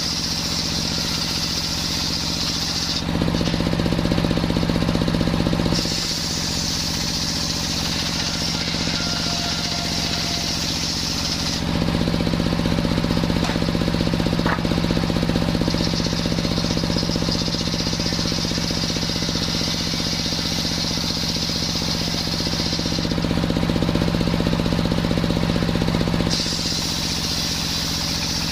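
Machine-driven circular sawmill running while sawing coconut-palm timber. A steady mechanical drone gets louder and heavier for about three seconds early on, then again for a long stretch from about 12 s to 26 s, consistent with the blade working through the log.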